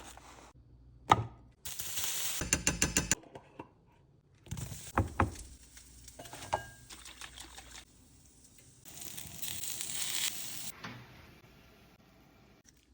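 A series of short, abruptly cut kitchen handling sounds: hissy, sizzle-like passages with knocks and a quick run of clicks.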